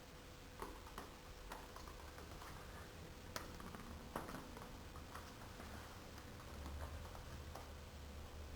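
Faint, scattered light clicks and taps at irregular intervals over a low background hum.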